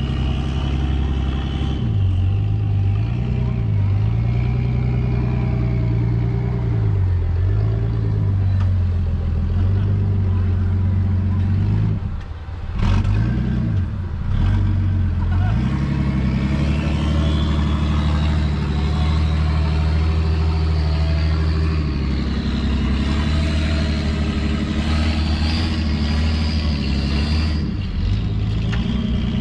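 Off-road Jeep's engine working hard under load on a steep dirt hill climb, revving up and down. The revs drop off briefly about twelve seconds in, then are held high again.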